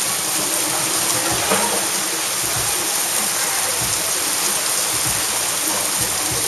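Heavy tropical squall rain pouring down in a dense, steady hiss.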